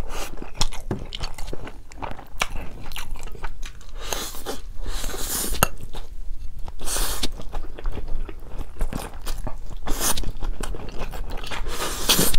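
Close-miked eating of Buldak spicy stir-fried instant noodles: wet chewing with many small mouth clicks, broken by several hissy slurps of noodles about four, seven, ten and twelve seconds in.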